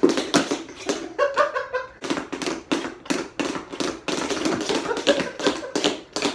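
Two dancers' tap shoes striking a hard floor in quick, uneven runs of sharp taps, several a second, with a short voice sound about a second in.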